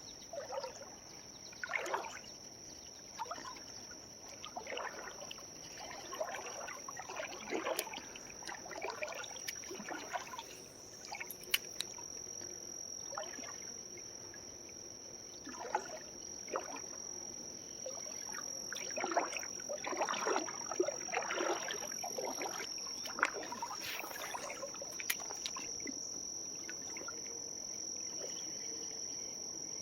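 Insects keep up a steady, high-pitched drone over the irregular trickling and splashing of a small creek.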